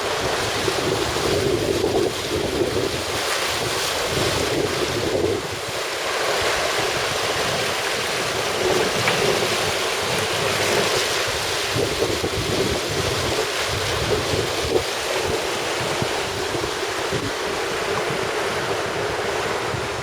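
Wind buffeting the microphone over the rush of seawater past the hull of a sailboat sailing fast on the open ocean. A steady rushing noise that swells and eases unevenly.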